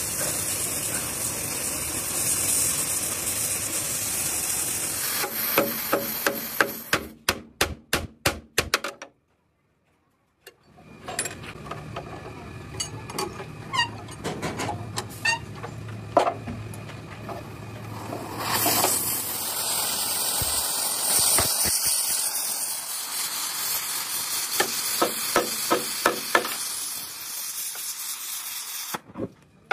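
Oxy-fuel cutting torch hissing steadily against steel chassis plate, broken by runs of sharp hammer blows on a steel chisel, a few blows a second. The sound drops out for about a second after the first run of blows, and the hissing comes back loud later on, followed by more blows.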